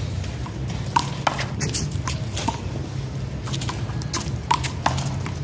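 One-wall handball rally: a small rubber handball smacked by hand and striking the wall and ground, about half a dozen sharp, irregularly spaced smacks.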